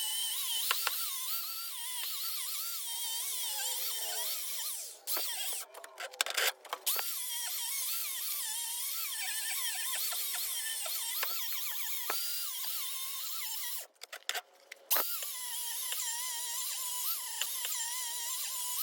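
Background music, thin and high with nothing in the bass, carrying a wavering melody. It breaks off abruptly a few times, as at edit cuts.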